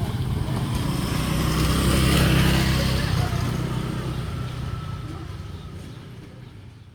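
Rumble of passing vehicles at a railway level crossing, swelling to its loudest about two seconds in and then steadily fading away.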